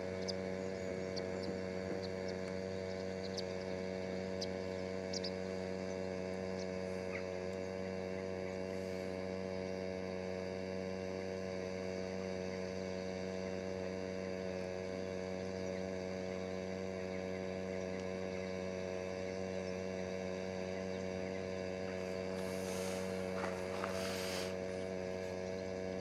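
A steady hum of several held tones that does not change, with a few faint, short high chirps in the first seconds and a brief hiss near the end.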